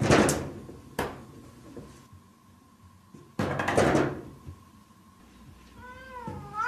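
Wooden-framed glass sliding door banging and rattling in its frame as a cat paws and shoves at it: a bang at the start, another about a second in, and a longer rattle a little after three seconds. Near the end, a short meow with a wavering pitch.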